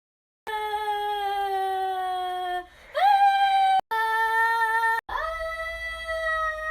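A voice singing four long wordless held notes, each a second or two, with short breaks between. The first note sags slightly, and the second and fourth slide up into a higher pitch.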